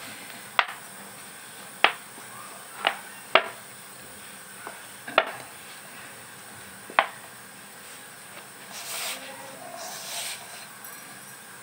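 Hand kneading stiff wheat-flour dough in a steel bowl: six sharp knocks against the bowl spread over the first seven seconds, then a brief rubbing rustle of dough and flour near the end.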